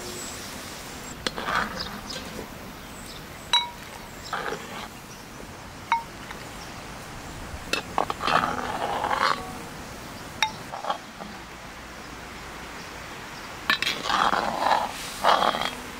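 Cookware being handled: a few short, sharp ringing clinks of metal and ceramic, and brief scraping and rustling noises in between.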